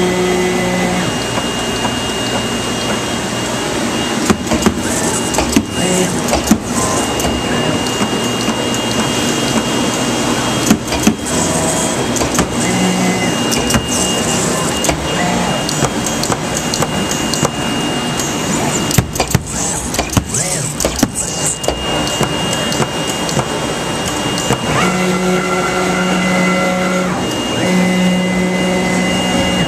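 2013 Autometrix Advantage plotter/cutter running, its servo motors whining as the gantry and tool head drive a rotary cutting wheel across sailcloth. A thin high tone comes and goes, with scattered clicks and knocks, and near the end there are several pitched motor whines that start and stop.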